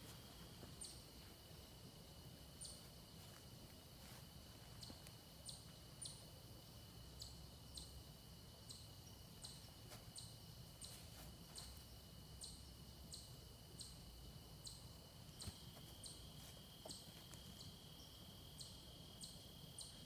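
Faint outdoor ambience: a steady high-pitched insect trill, with a short, very high chirp repeating evenly about every 0.7 seconds.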